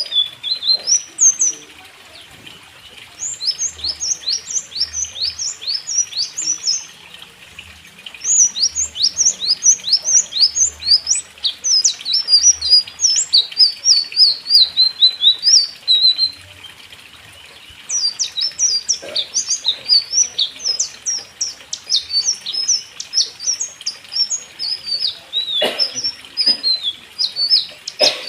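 Small aviary birds chirping in fast, repeated bouts of high, quick downward-sliding notes, broken by two short pauses. A couple of sharp knocks come near the end.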